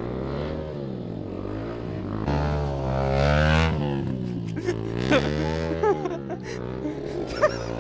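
Motorcycle engine revving, its pitch rising and falling several times as the throttle is opened and closed, loudest about three seconds in.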